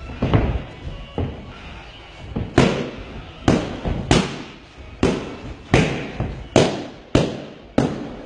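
Punches from boxing gloves smacking into the coach's pads in pad work: about ten sharp, irregularly spaced hits, each echoing briefly in a large gym hall.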